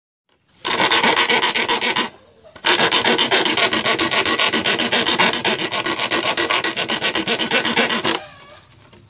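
Half-round wood file rasping the cut edge of a hole in a plastic container in quick, even strokes, smoothing it. A short run of strokes, a brief pause about two seconds in, then a long steady run that stops near the end.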